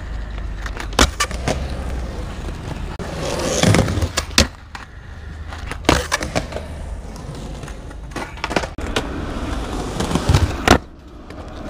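Skateboard wheels rolling over rough concrete spot strewn with pebbles and bits of glass, punctuated by a string of sharp clacks as the board is popped and lands, loudest about six seconds in and again near the end.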